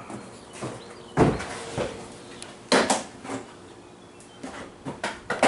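Irregular knocks and clunks of hard objects being handled, with three louder ones: about a second in, near three seconds in, and at the very end.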